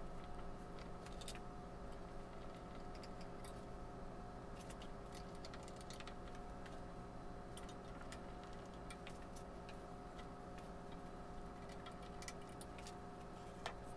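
Faint, irregular small clicks and ticks of a hand screwdriver working screws through a cast iron frame into a wooden top, over a steady low hum.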